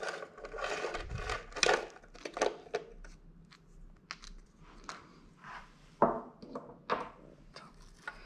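Irregular light clicks and knocks of a 4 mm Allen key working bolts at the chainring, with the e-MTB's chain guide being lifted off and its chain handled.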